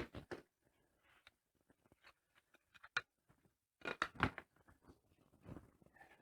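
Intermittent handling noises of work on corrugated plastic panels: scattered clicks, taps and short rustles, busiest near the start and around four seconds in.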